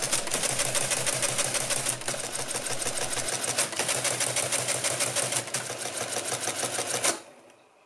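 Mercedes Euklid Model 21 electromechanical calculator running an automatic division: steady electric-motor hum under a rapid, continuous clatter of clicks from its spinning mechanism as the carriage steps along. It stops abruptly about seven seconds in.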